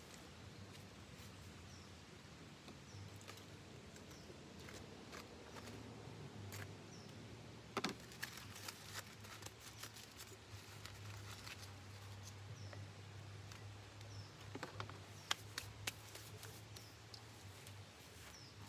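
Scattered light clicks and knocks of plates and aluminium foil being handled, the loudest about eight seconds in, over a faint low hum and a few faint bird chirps.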